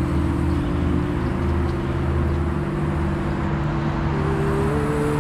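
Car running steadily, its engine hum and road noise heard from inside the moving car, the pitch shifting a little near the end.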